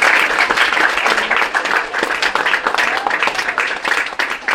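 Audience applauding, a dense patter of many people clapping that eases off a little near the end.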